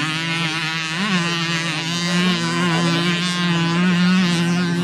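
Several small two-stroke moped engines running in a race. One holds a steady high note while others rise and fall in pitch as they rev and pass.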